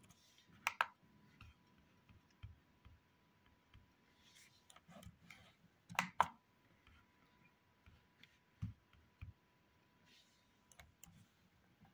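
Sparse, quiet button clicks from working a laptop: a pair about a second in, a louder pair about six seconds in, and a few fainter ticks between.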